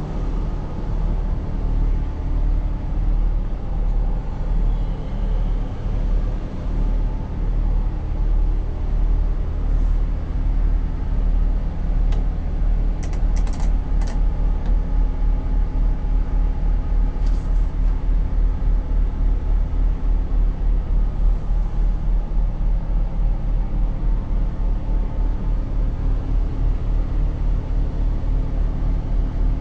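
Diesel engine of a Kobelco SK485 excavator running steadily, heard from inside its cab as a low, even drone. A few light clicks near the middle.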